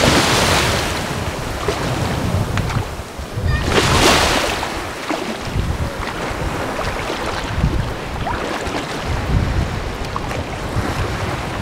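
Small waves breaking and washing over the shallows of a sandy beach, with two louder hissing surges, one at the start and one about four seconds in. Wind buffets the microphone throughout with a low rumble.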